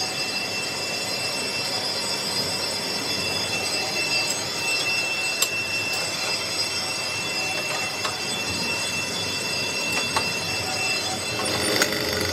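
Metalworking machinery running steadily with a high, constant metallic whine over a hiss, with a few sharp clicks along the way.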